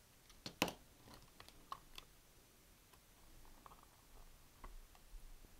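A small precision screwdriver working at screws in a Sony TC-40 cassette recorder's tape transport: faint, scattered metallic clicks, the sharpest about half a second in.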